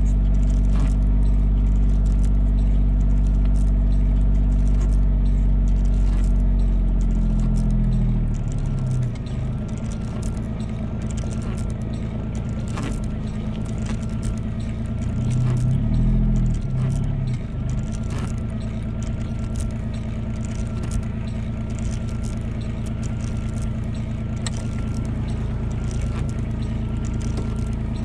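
Vehicle engine running steadily. It drops in level and changes pitch about eight seconds in, then briefly rises again around sixteen seconds, with occasional knocks and clatter.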